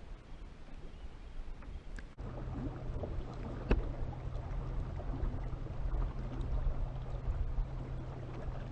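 A motor running with a steady low hum and rumble, starting abruptly about two seconds in, with one sharp click shortly after.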